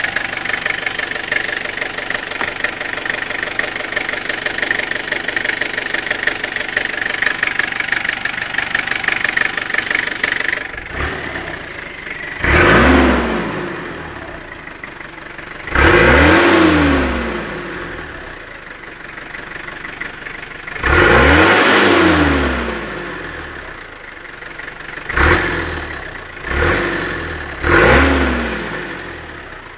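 Toyota Hilux 2.8-litre four-cylinder turbo-diesel idling with a steady high whine, then revved six times in the second half. Each rev rises sharply and falls back to idle, and the last three come in quick succession.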